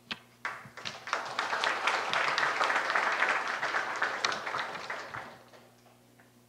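Audience applauding: a few scattered claps, building within about a second into steady applause that fades away about five seconds in.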